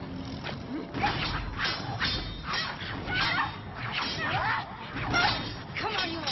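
Staff fight: fighting staffs clashing and swishing in a quick series of strikes, about two a second, with short cries from the fighters between the blows.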